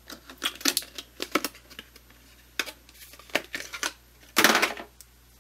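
A RAM module's clear plastic clamshell packaging crackling and clicking as it is prised open and the stick is taken out, ending in a louder rustle of plastic about four and a half seconds in.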